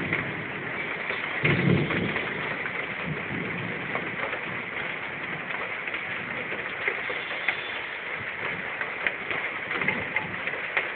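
Heavy rain falling steadily, with many sharp drips, and a low rumble of thunder swelling about one and a half seconds in.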